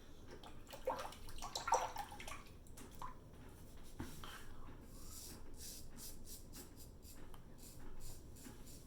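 Gem Pushbutton single-edge razor scraping through lathered stubble in a run of short, quick strokes, mostly in the second half.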